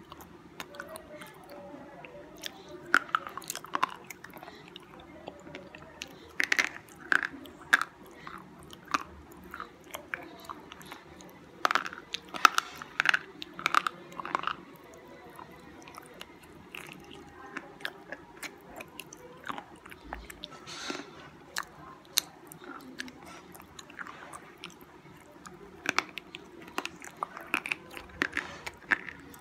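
Slate pencil bitten and chewed between the teeth: sharp, dry crunches in quick clusters, with fainter chewing between them.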